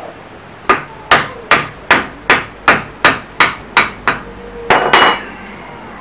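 Hammer striking a chisel set into an electric motor's stator, cutting out the old copper windings: about ten sharp, evenly paced metal blows, about two and a half a second. Near the end comes one louder metal clang that rings on briefly before the blows stop.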